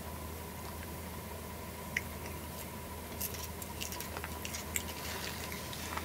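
A domestic cat chewing blades of cat grass: a quick run of small crisp crunches and clicks, thickest from about three seconds in.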